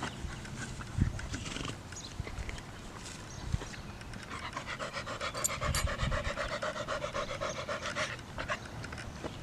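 A dog panting fast and rhythmically, loudest from about halfway in until shortly before the end.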